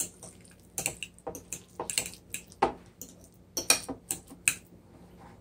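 Metal fork mashing avocado in a ceramic bowl: irregular sharp clinks and short scrapes of the fork against the bowl, starting about a second in.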